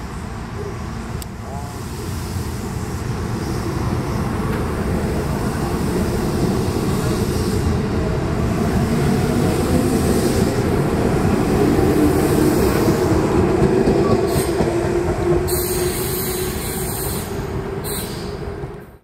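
JR West 221 series electric train pulling out of a station, its traction motors giving a rising whine as it gathers speed. The running noise grows loudest as the cars pass close by, then fades as the train draws away.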